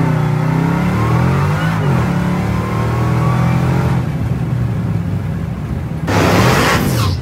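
Hellcat supercharged V8 in a Ram 1500 pickup accelerating hard under full throttle, heard from inside the cab. The engine note climbs, breaks at a gear change about two seconds in, then climbs again. About six seconds in comes a loud rushing noise lasting about a second.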